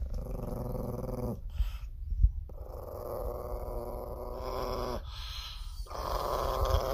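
A chihuahua growling in three long, rough bouts with short breaks between them.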